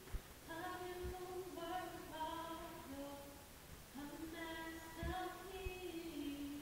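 A woman singing solo with no backing, in long held notes that slide between pitches, in two phrases with a short break between them. A few soft low thumps sound under the voice.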